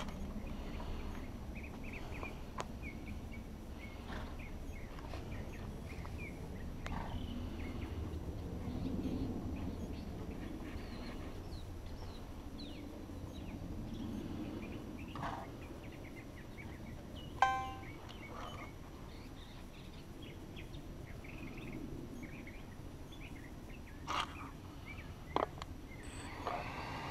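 Scattered short bird chirps over a low, steady outdoor rumble, with a few sharp clicks in the second half.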